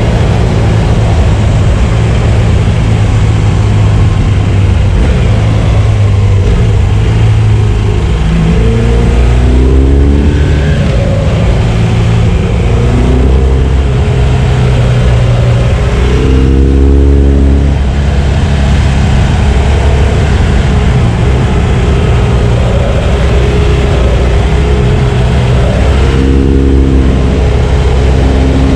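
2016 BMW R1200 GS's liquid-cooled boxer twin engine running under way, its pitch rising and falling several times as the rider accelerates and backs off.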